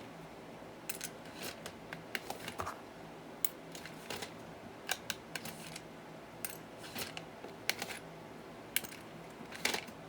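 Small plastic LEGO pieces clicking and clattering as they are handled and put away: irregular sharp clicks, some in quick clusters.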